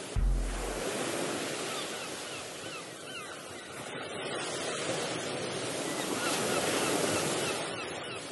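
Sea waves washing on the shore, with wind buffeting the microphone. There is a low thump just after the start, and the surf swells again toward the end.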